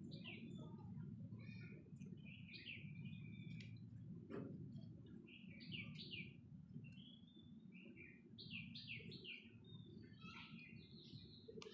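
Small birds chirping in quick short calls again and again, over a faint low steady background rumble, with one soft knock about four seconds in.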